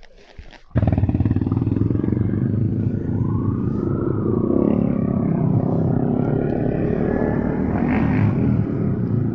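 A Yamaha Y15ZR's engine running as the bike rides along, with wind noise on the action-camera microphone. It comes in suddenly a little under a second in, after a quieter moment, and then holds steady.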